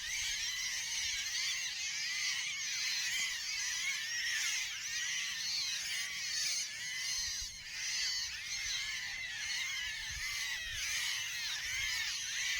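Dense, continuous chorus of many birds chattering and calling at once: a constant tangle of short, overlapping chirps that rise and fall.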